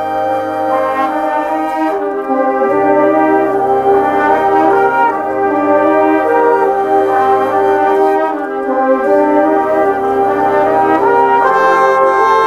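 Concert band music with the brass to the fore, trombones, trumpets and horns playing full chords, in a multitrack recording where one player plays every part. The band grows louder about two seconds in.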